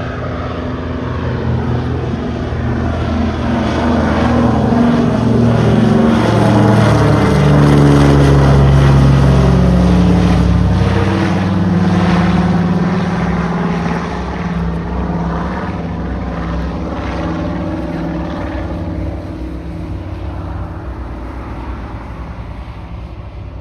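PBY-5A Catalina flying by on its two Pratt & Whitney R-1830 radial engines, the propeller drone growing louder, peaking about a third of the way in, then dropping in pitch and fading as it passes.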